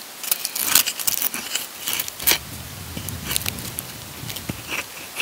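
Axe blade shaving curls off a split stick of firewood held on a chopping block: scraping cuts with several sharp clicks and knocks of steel and wood.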